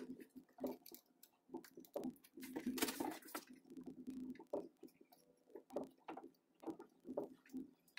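Faint, irregular clicks and scrapes of ordinary pliers squeezing a metal crimp terminal onto a stripped wire, crimping it by hand without a crimping tool.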